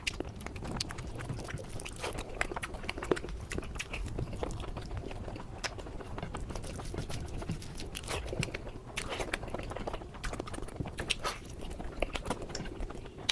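A person chewing and eating close to the microphone: a dense, irregular run of short mouth clicks and smacks.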